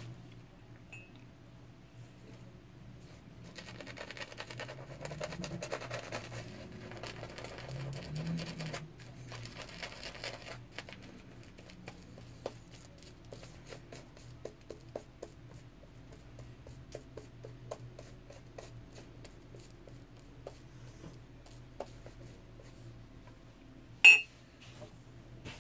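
Semogue 620 boar-bristle shaving brush working lather over the face and beard: a run of soft, quick bristle scratches and ticks. One sharp clink near the end is the loudest sound.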